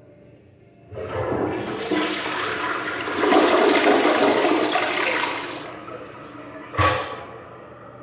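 Toto Drake toilet flushing: a rush of water starts suddenly about a second in, runs loudly for about four seconds, then dies down to a quieter running of water, with one short, sharp burst of sound near the end.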